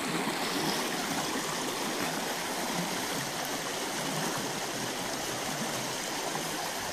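Shallow stream running fast over rocks, a steady rush of water.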